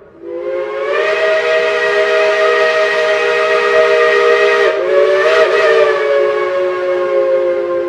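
Multi-chime steam whistle of a Shay geared steam locomotive blowing a long chord of several tones. It is briefly broken and re-sounded just before five seconds in, then held on.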